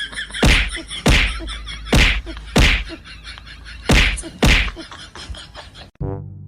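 A series of six heavy whacks or thuds, irregularly spaced about every half second to a second and a half. Near the end it cuts to brass music.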